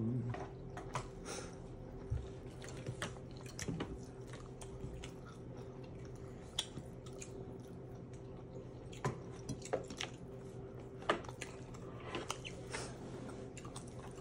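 Someone eating at close range: chewing with scattered small clicks and taps, over a steady low hum.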